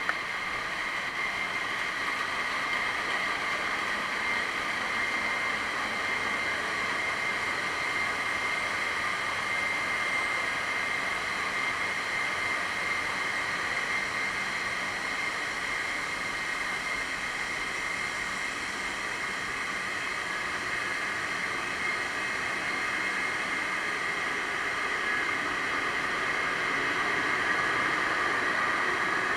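Constant machinery noise of a container ship's engine room, with several steady high whines running through it. It grows slightly louder near the end.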